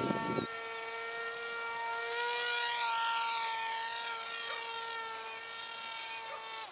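Wild Hawk RC plane's motor and propeller in flight, a steady high whine that swells a little around three seconds in and eases off toward the end.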